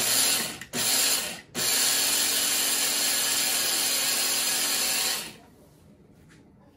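Electric blade coffee grinder grinding oats into flour. It runs in two short pulses, then in one continuous run that stops about five seconds in.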